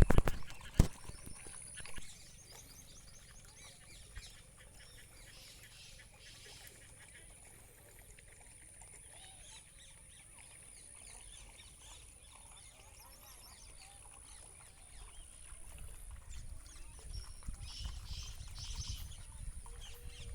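Faint outdoor bird calls come and go over a steady high-pitched whine. A few loud knocks sound in the first two seconds, and a low rumble builds in the last few seconds.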